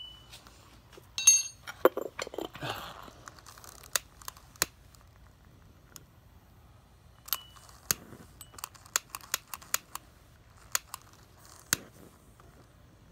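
A metal spoon clinks against a small glass beaker and charcoal crunches as it is tipped in. Then a long-necked utility lighter's igniter clicks over and over at uneven spacing without lighting, a worn-out lighter.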